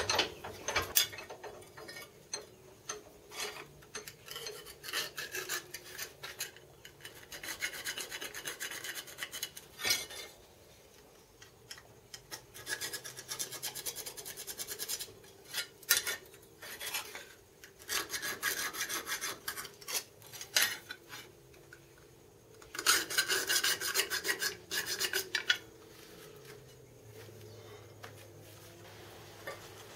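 Hand file rasping across the edges of a bent sheet-metal motor mount bracket clamped in a bench vise. The strokes come in runs of a couple of seconds, with short pauses between.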